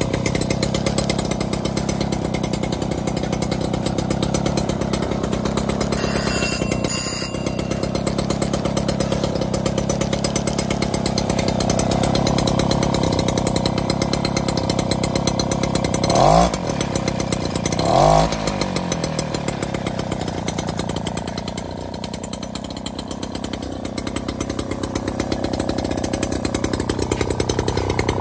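Mobylette AV37's small two-stroke single-cylinder engine running steadily with a fast, even beat, blipped twice about two-thirds of the way through, its pitch rising briefly each time.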